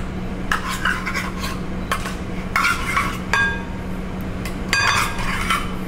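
Spoon clinking and scraping against a glass mixing bowl and a small container while pumpkin puree is scooped into the bowl: a series of short knocks, a couple of which ring briefly.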